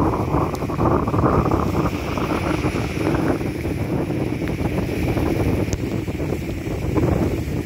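Severe thunderstorm wind gusting hard, rushing through the trees and buffeting the phone's microphone, with the steady hiss of rain beneath it.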